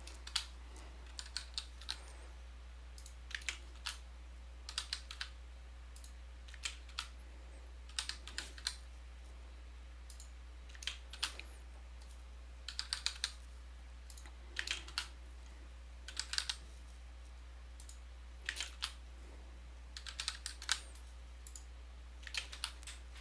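Computer keyboard typing in short bursts of a few keystrokes with pauses between, over a steady low electrical hum.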